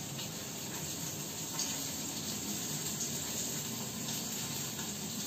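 Fish frying in hot oil in a steel wok, a steady sizzle.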